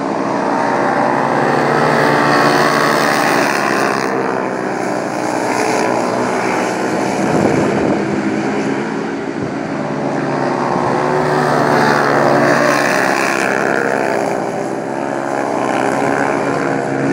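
Several speedway motorcycles' 500 cc single-cylinder methanol engines racing together, their pitch rising and falling as the riders throttle through the bends. The sound swells and fades about every four to five seconds as the pack circles past.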